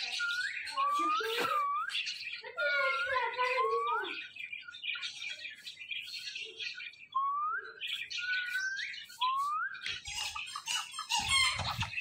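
Indian ringneck parakeet calling: short rising whistles and squawks in three bursts, with a quieter stretch between them. Near the end there is rough clicking and rustling.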